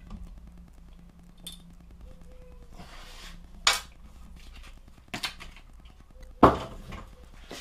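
Small hand tools and packaging being handled and set down on a wooden workbench: a brief rustle, then a few sharp knocks and clicks, the loudest near the end.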